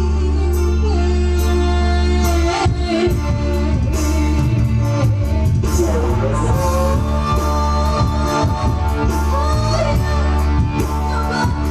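A song playing: a singing voice carries a wavering melody over a heavy, steady bass accompaniment.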